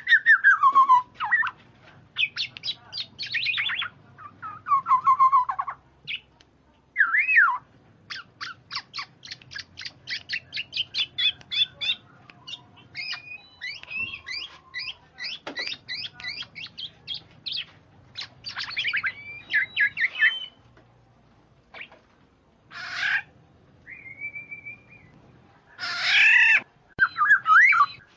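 Recorded kepudang (black-naped oriole) calls used as a bird lure: a busy string of downslurred whistles and fast chattering runs of notes, with two harsh, rasping calls near the end.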